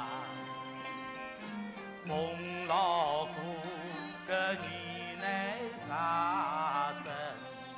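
A man singing a Chinese model-opera aria in short phrases with a wide vibrato, over steady instrumental accompaniment.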